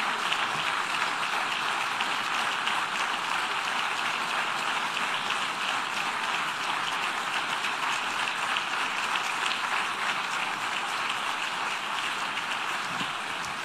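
Sustained applause from a large audience: many hands clapping in a dense, even patter that eases a little near the end.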